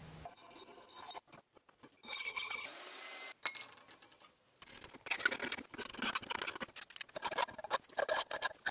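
Hand file rasping on a small bronze casting clamped in a bench vise: a run of quick back-and-forth strokes from about five seconds in, after a brief scrape and a sharp click.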